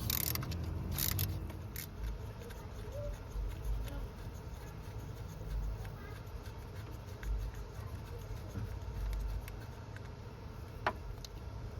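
Ratchet and socket work on engine bolts: scattered clicks and light knocks, a few sharper ones in the first two seconds and one near the end.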